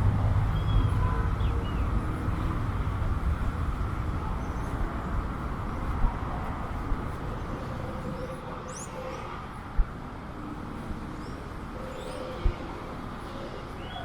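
Low rumble of road traffic fading away as a vehicle moves off, with a few short bird chirps and three or four sharp thumps.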